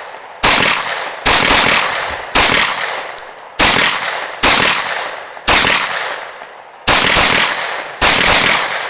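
Grand Power K100 9mm pistol firing eight single shots at a steady pace of about one per second, each shot followed by a long echoing decay.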